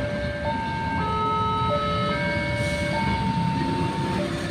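Low rumble of a passing train at a level crossing, with a slow melody of held, pure tones that change pitch every second or so over it. The sound fades out near the end.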